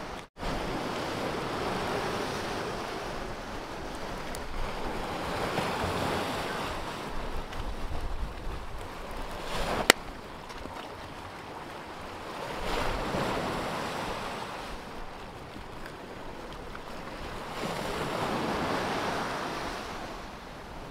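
Sea waves washing on the shore, swelling and fading about every six seconds, with wind on the microphone. A single sharp click about halfway through.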